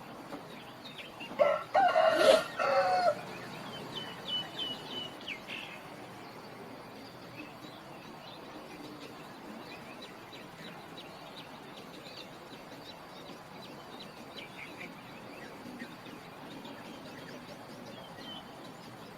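A rooster crows once, one loud call of nearly two seconds, followed by a run of short high chirps from small birds and then scattered chirps over a faint steady outdoor background.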